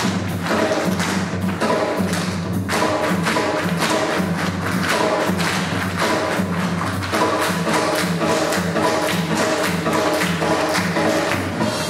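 Recorded dance music driven by a steady pounding drum beat over a repeating low bass figure.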